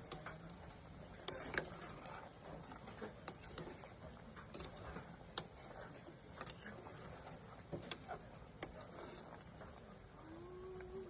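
Scattered sharp clicks and light taps, roughly one a second, over a faint steady background, with a brief rising tone near the end.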